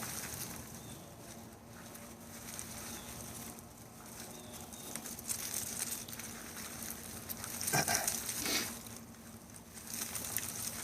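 Hands sifting and rummaging through dumped-out potting soil while searching for sweet potatoes: uneven rustling with small crumbly patters and clicks, louder for a moment about eight seconds in.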